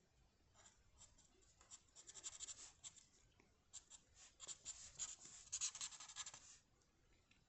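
Faint scratching of a drawing tool on paper, quick strokes in two runs: one about a second in, the other from about four to six and a half seconds.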